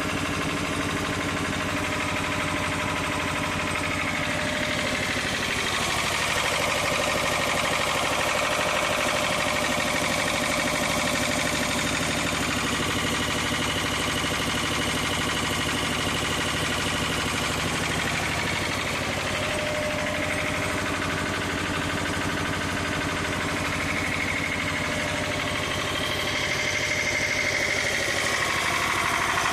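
Lister TS2 two-cylinder air-cooled diesel engine driving a 7 kVA generator, running steadily.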